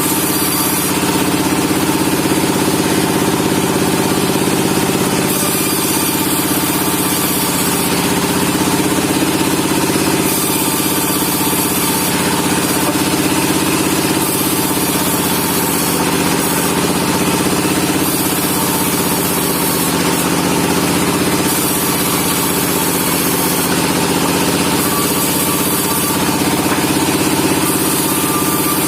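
Sawmill machinery running steadily with a constant engine-like hum, while sawing pine logs. A high hiss comes and goes every few seconds.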